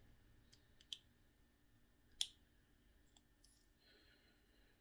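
Faint, sharp clicks of a small plastic part being cut or popped off a model-kit sprue with a hobby knife, the two loudest about one and two seconds in, with a few fainter ticks between.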